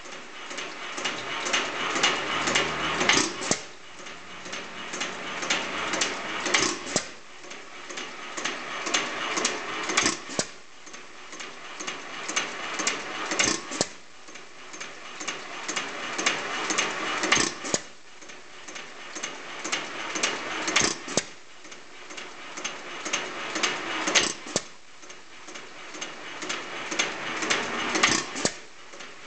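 3 HP I.H.C. Famous vertical air-cooled hit-and-miss engine running, with a sharp firing stroke about every three and a half seconds. Between firings there is steady mechanical clicking as it coasts.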